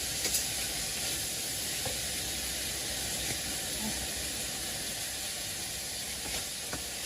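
Steady hissing and sizzling of a stir-fry cooking in a pan over a gas stove, with a few faint clicks.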